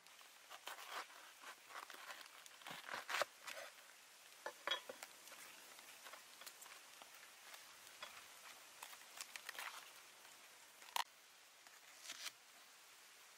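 Knife cutting through a raw banana flower on a wooden chopping block: faint crisp crunching and crackling of the layered bracts, with a few sharper clicks, the loudest about three seconds in and near eleven seconds.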